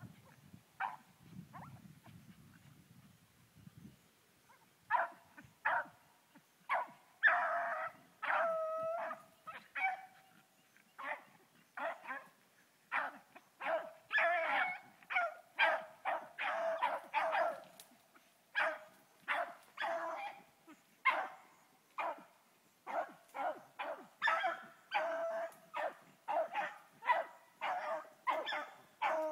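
Hunting hounds barking and baying, a few scattered barks at first, then a steady run of about one or two calls a second, some drawn out into longer bawls that bend in pitch: hounds running a rabbit.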